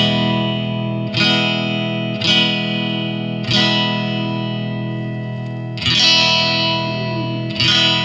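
Electric guitar, played on the neck single-coil pickup through a Tonemender EQ pedal with its mid boosted, strumming six chords and letting each ring. The treble is being turned down from where it sounded scratchy.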